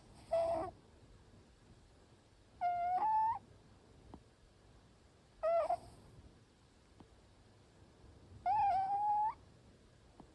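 Short-legged Munchkin cat snoring with a high-pitched whistle on the breath: four short whistling snores about every three seconds, the longer ones rising slightly in pitch.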